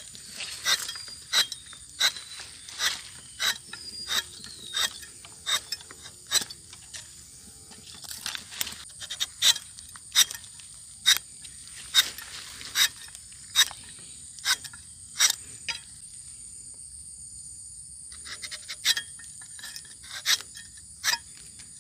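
Rubber-tapping knife shaving a thin strip of bark along the tapping cut of a rubber tree, in short, crisp scraping strokes about one and a half a second, with a pause of a couple of seconds before the strokes resume.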